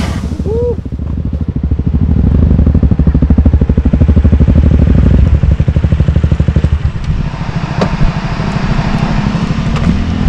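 Motorcycle engine running close by with a fast, even firing beat. It is loudest for a few seconds, then eases off, and rises in pitch near the end as it revs up.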